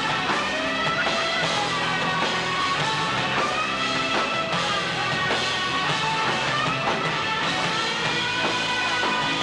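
Rock band playing, with guitars and drums, recorded on a VHS camcorder; held melody notes bend up and down over a steady beat.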